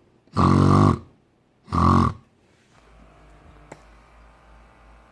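A man imitating snoring twice, two short loud snorts about a second apart, made close to the microphone of an anti-snoring air pillow so that it detects a snore. A faint low hum and a single click follow.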